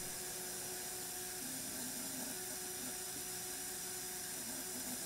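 CO2 vapor from a mini-bulk tank purging through a T-fitting at about 5 psig: a steady, even hiss of escaping gas with a faint steady tone underneath.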